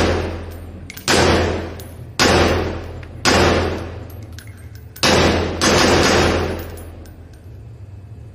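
Handgun shots at a shooting range, fired singly about a second apart, four or five in all with a short pause before the last, each followed by an echoing decay, over a steady low hum.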